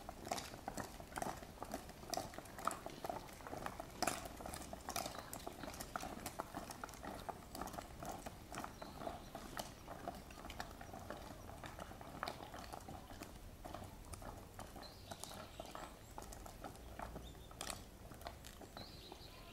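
Footsteps of several monks walking in sandals over gravel and stone paving: an irregular patter of short clicks and scrapes, busiest in the first half.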